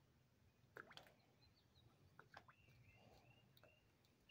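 Near silence: faint outdoor ambience with a few soft ticks and a faint high, wavering whistle in the last second or so.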